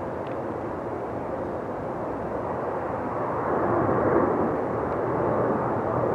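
Jet engines of a small rear-engined twin-jet on landing approach: a steady rushing noise that swells to its loudest about four seconds in as the plane descends past toward the runway.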